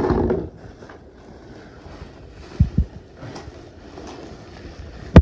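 Wind rumbling on the microphone, with two short low thumps a little past the middle and a sharp loud knock at the very end.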